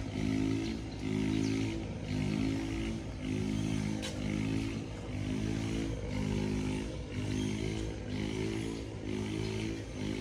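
An engine running steadily, its note swelling and fading in a regular pulse about once every three-quarters of a second.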